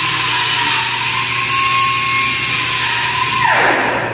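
A high-speed power tool motor running with a steady whine and a loud hiss, then spinning down with a falling whine and stopping near the end.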